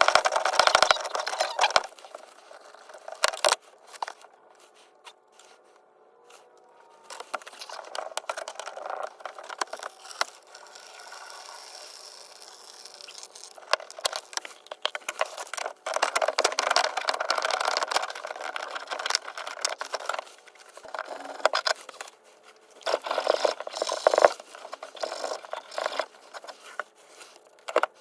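Irregular scraping, rattling and clicking of objects being handled, coming in busy stretches with quieter gaps between them.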